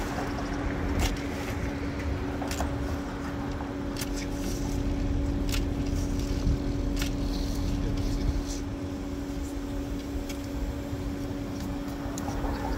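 Car engine idling steadily, its exhaust piped through a hose into an inflatable exhaust-jack bag, giving a constant low hum. Short sharp clicks and scrapes come and go over it.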